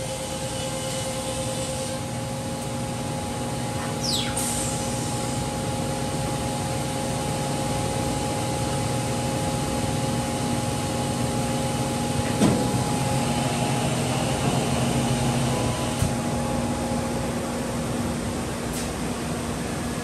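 Holz-Her Dynestic 7532 CNC router running, a steady whirring hum with several held tones. A short falling whine comes about four seconds in, and a sharp knock about twelve seconds in.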